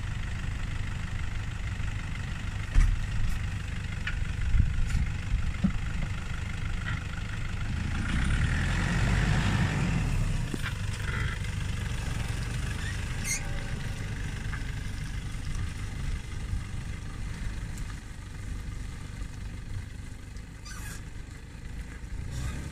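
Toyota Hilux off-road camper's engine running as the truck pushes through deep mud ruts, getting louder about eight seconds in as it works harder. A few sharp knocks come in the first few seconds.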